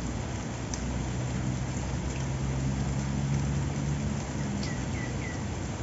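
Steady rain, with a low engine-like hum swelling through the middle and three short high chirps near the end.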